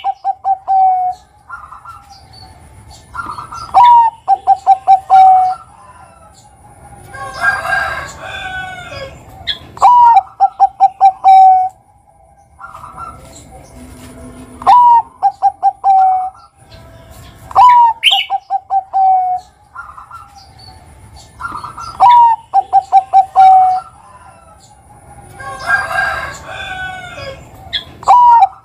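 Bangkok-strain zebra dove (perkutut) singing its coo song again and again. Each phrase is a rising opening note, a quick run of stuttering notes and a longer closing note, repeated every few seconds. Twice a noisier burst with chirps breaks in.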